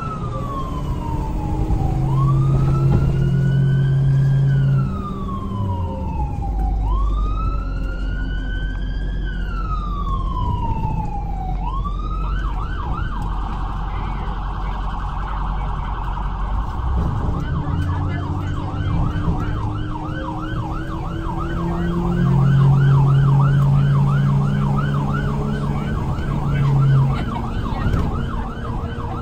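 Ambulance electronic siren heard from inside the cab of a 2007 Ford/PL Custom ambulance on an emergency run: a slow wail rising and falling every few seconds, switching about twelve seconds in to a fast yelp of about four sweeps a second. A low steady blare sounds twice under the siren, for a few seconds each.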